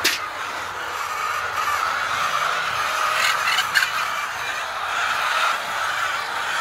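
A flock of fowl calling continuously, with a few sharp knocks about three and a half seconds in.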